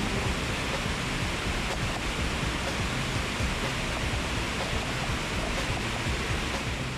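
Steady rush of a waterfall in full flow, water pouring into a pool below.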